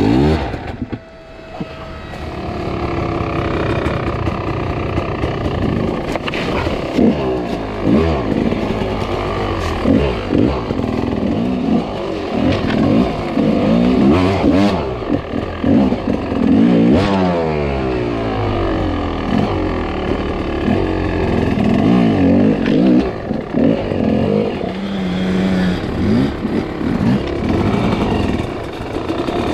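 Enduro dirt bike engine under hard throttle, its pitch rising and falling again and again as it is revved and eased off. It drops briefly about a second in, then picks up. Scattered knocks and rattles come from the bike over rough ground.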